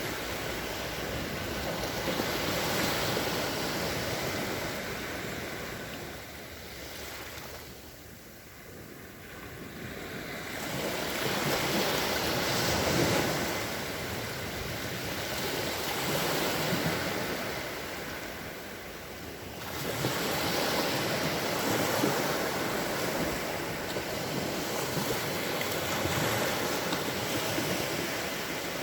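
Sea waves washing onto the shore, the surf swelling and easing every few seconds, with a quieter lull about a third of the way through and a fresh wave surging in about two-thirds through. Some wind noise on the microphone.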